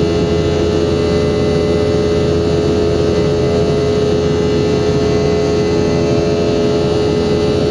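Boeing 717-200's Rolls-Royce BR715 turbofan engines running at a steady setting: a constant loud drone with a strong steady hum and no rise or fall in pitch.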